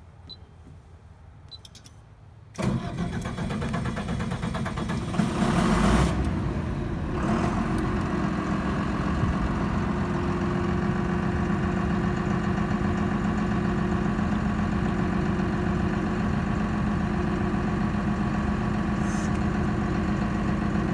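Cummins diesel engine of a 105 kW generator in a sound-attenuated enclosure starting: it comes in suddenly about two and a half seconds in, builds to a peak near six seconds, then settles into a steady run. The engine is held at reduced speed in the controller's smoke-limiting stage after start, before warm-up.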